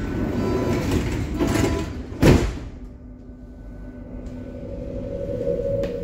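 The sliding doors of a Berlin U-Bahn H-series train close with a loud thump about two seconds in, just after the door-warning beeps. A few seconds later the traction motors start a steady whine as the train begins to pull away.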